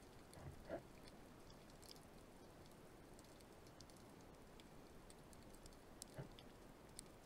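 Near silence underwater: a faint crackle of scattered tiny clicks, with a soft knock about a second in and another couple near the end.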